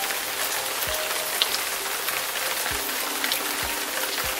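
Steady rain falling on wet ground and puddles, with a few soft low thumps about a second apart.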